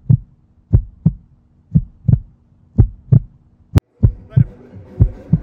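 Heartbeat sound effect: paired low thumps, about one pair a second. A sharp click comes a little before four seconds in, and then a fuller layer of sound starts beneath the beats.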